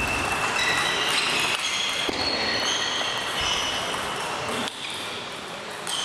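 Table tennis play: a celluloid ball clicking off bats and table in a rally that ends in the first seconds, with further ball clicks from other tables. Throughout there are many short, high ringing pings and squeaks.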